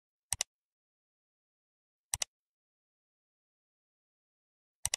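Mouse-click sound effect: three quick double clicks, spaced a couple of seconds apart.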